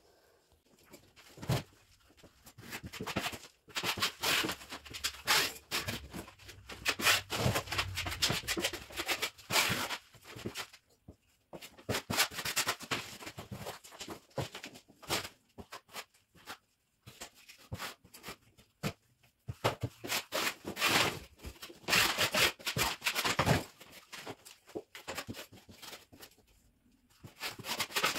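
Metal putty knife scraping across drywall, spreading plaster over taped patches in many short, irregular strokes with brief pauses between.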